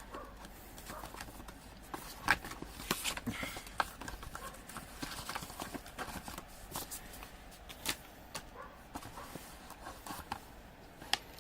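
Hands handling and unpacking a graphics card box: irregular clicks, knocks and rustles of cardboard and plastic packaging.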